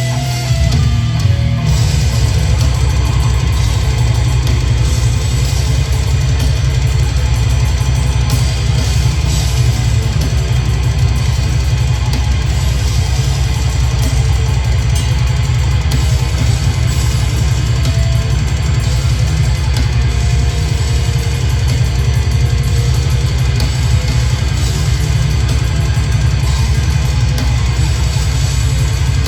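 Heavy metal band playing live: distorted electric guitars and a drum kit, loud and continuous, with a heavy low end.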